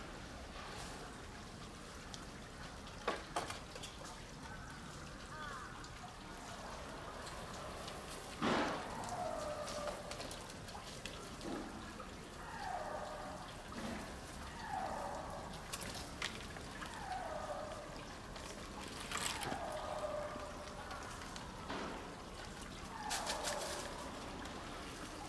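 A bird calling over and over, each call falling in pitch, about every two seconds from about a third of the way in. A few sharp snaps stand out among the calls.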